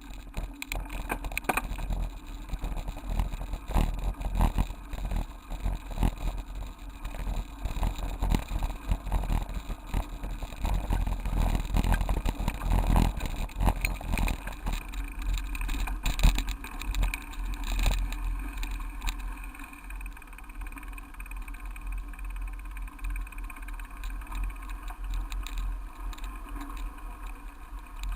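Waterfall rushing, with a heavy low rumble that swells and dips unevenly and frequent short knocks.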